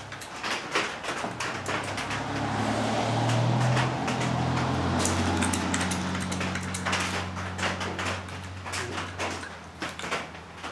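Clicks and knocks from a Hein-Werner porta power hydraulic hand pump as it is worked and handled, with no pressure building. Under them runs a low steady hum that swells about two seconds in and fades away near the end.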